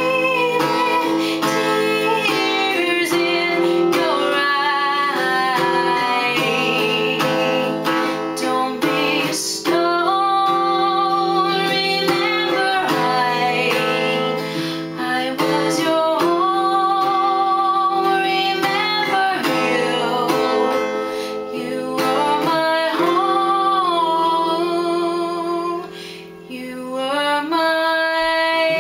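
A woman singing a slow song to her own acoustic guitar accompaniment. The voice and guitar drop away briefly near the end, then resume.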